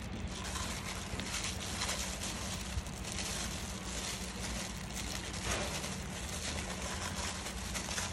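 Soft rustling and crackling of a plastic-gloved hand handling the meat and leaves of tré in a steel bowl of shredded green mango, over a steady low hum.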